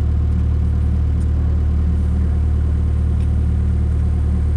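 Heavy digging equipment's engine running steadily at constant revs, a deep even hum with no change in speed.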